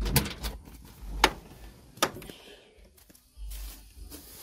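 The 1986 Nissan D21 pickup's driver door being opened from inside: two sharp latch and handle clicks about a second apart, then a short rustle as someone climbs out.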